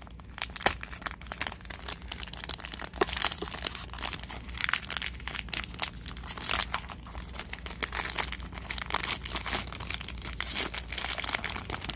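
Plastic wrapper of a 2021 Panini Playoff football card fat pack being torn open and crinkled: irregular crackling and rustling throughout.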